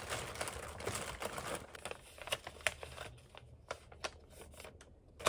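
Plastic delivery bag crinkling as it is cut open with scissors and pulled apart by hand: a dense rustle for the first couple of seconds, then scattered sharp crackles.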